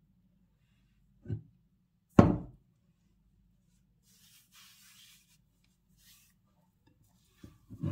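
A few separate knocks and thumps: a soft knock, a sharp loud one about two seconds in, and a couple more near the end, with a faint rustle between them.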